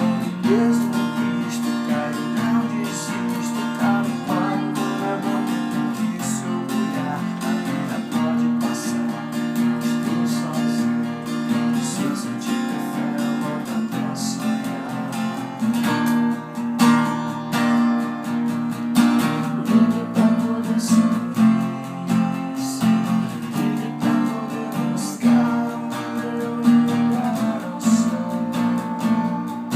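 Acoustic guitar strumming chords without singing: an instrumental passage of the song.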